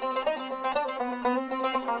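Background music: a quick banjo-style picked melody over a steady low note.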